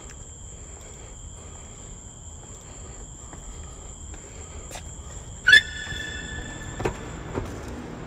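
Steady high-pitched trilling like crickets. About five and a half seconds in comes a sudden loud, high-pitched sound that trails off over about a second, followed by two fainter knocks.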